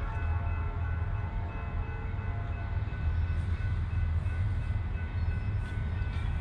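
An approaching Norfolk Southern train: its locomotive horn chord fades out right at the start, leaving a steady low rumble with faint traces of the horn.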